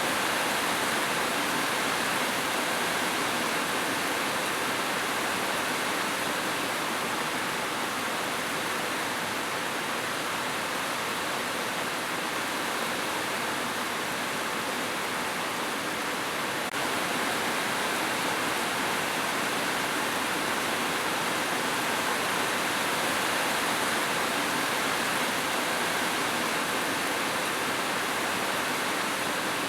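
Steady rushing of running water, an even, unbroken noise.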